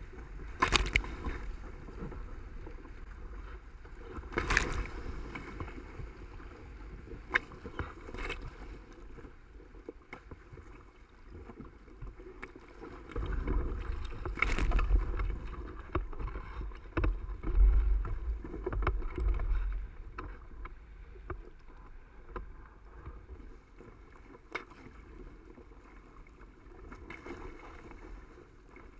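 Hobie Cat hull driving upwind through choppy water: a steady rush of water and wind, with several sharp slaps of waves against the hull. In the middle there is a louder stretch of low wind buffeting on the microphone.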